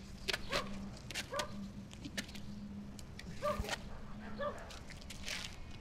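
A dog barking in short single barks, about five of them spread unevenly, with sharp clicks and knocks between them.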